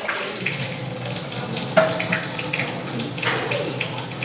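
Water running from a tap into a sink while hands are washed under it, with a few light knocks.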